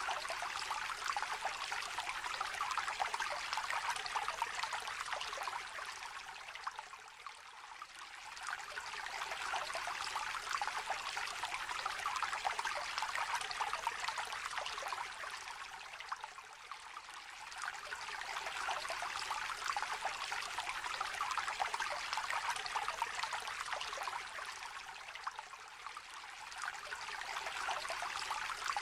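A small shallow river trickling and babbling over stones, an even splashing rush that eases off briefly about every nine seconds and then swells back.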